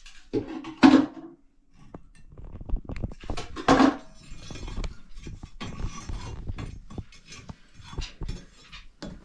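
Metal clanking and scraping as a wood stove is cleaned out: two loud ringing clanks about one second and four seconds in, then steady rattling and scraping of ash mixed with scrap iron, staples and nails.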